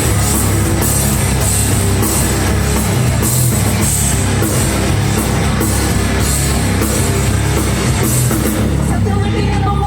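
Live heavy rock band playing loud: distorted electric guitars, bass and a full drum kit with cymbal crashes roughly once a second, an instrumental intro recorded from the crowd.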